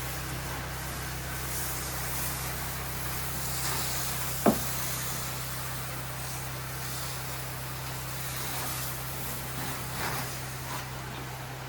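Pressure washer running: a steady engine hum under the hiss of the water spray, with one sharp knock about four and a half seconds in.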